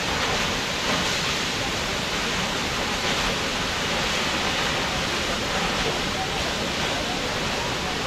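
Steady rush of water pouring down a large waterfall, an even roar with no breaks.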